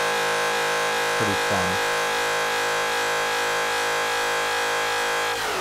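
Electronic audio feedback loop in Ableton Live, fed through a delay, distortion and filter chain: a steady buzzing drone of many held tones with a regular pulsing warble, two quick falling pitch glides about a second in, and an abrupt shift to a rougher, noisier texture near the end.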